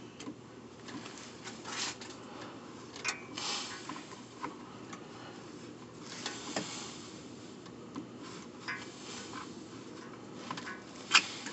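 Fabric rubbing and rustling against a phone's microphone, with scattered light clicks and knocks and a sharper click near the end.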